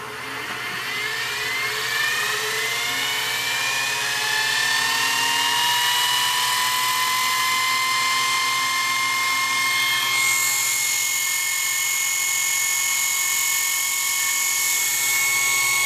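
Early-1940s General Electric dynamotor, a 28-volt DC motor driving a high-voltage DC generator, spinning up from a start. Its whine rises in pitch over the first several seconds, then holds as a steady high whine, running smoothly. It runs below its rated 5,000 rpm on a simple 12-volt bridge-rectifier supply, and a brighter hiss joins about ten seconds in.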